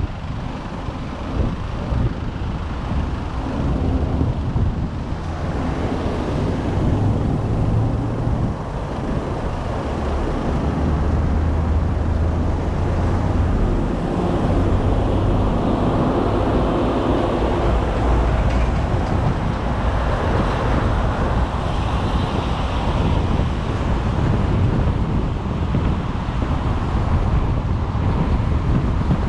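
Road traffic: motor vehicle engines running with tyre and road noise, a steady low rumble that rises and eases gently.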